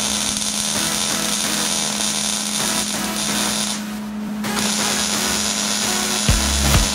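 MIG wire-feed welder laying a bead on a steel dump-box panel: the steady crackling sizzle of the arc, which stops briefly about four seconds in and then starts again.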